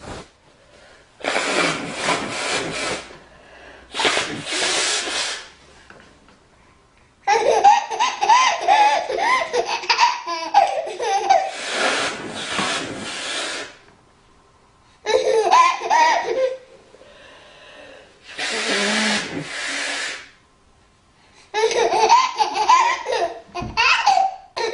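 A woman blowing her nose four times, each a hissy blast of one to two seconds. Between the blows a baby answers with loud, wavering vocal outbursts.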